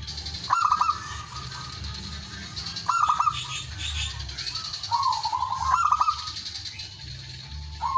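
Male zebra dove (perkutut) cooing: three or four phrases of quick, stuttering coos, some drawing out into a longer note. This is the male's call to a rival.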